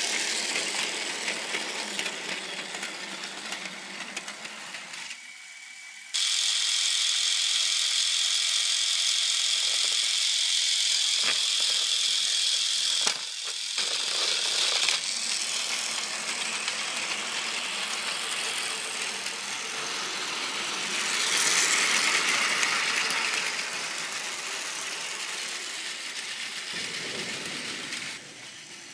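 Battery-powered Plarail toy train, a Tobu 100 series Spacia model, running on plastic track: its small motor and gearbox whirring with the wheels rattling along the rails. The level jumps abruptly about six seconds in and again about thirteen seconds in, then drops near the end.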